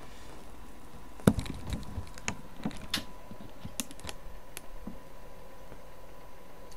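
Irregular clicks and knocks from a camera being handled and tipped down toward a soup bowl, the loudest about a second in; they thin out and stop around five seconds in.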